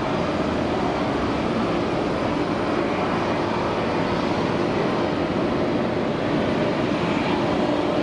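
Jet airliner engines running at a taxiing aircraft: a steady rumble and hiss with a faint steady hum in it.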